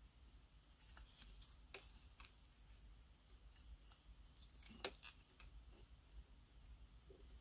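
Faint scrapes and light clicks of a wooden stick spreading paste filler along the metal rim of an enamelled steel stove part and picking it up from a metal plate, with two sharper ticks a little past the middle.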